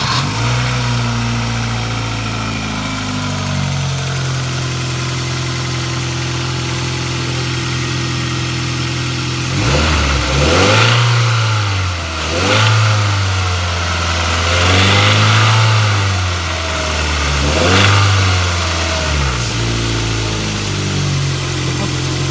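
Kia Ceed car engine idling steadily, then revved four times in short blips that rise and fall back to idle. Somewhere in the motor there is a knock, which is taken for either the timing chain rattling or the valves striking the pistons.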